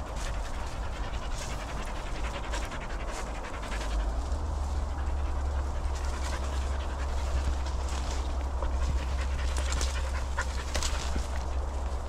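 A dog panting close by, with brushing through bracken and footsteps on the path making scattered small rustles and clicks. A low rumble on the microphone comes in about four seconds in and stays.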